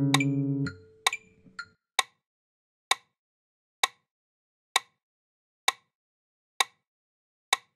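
Classical guitar's last slurred notes ring and fade out in the first second or so, then a metronome clicks steadily, about once a second, counting in the next exercise.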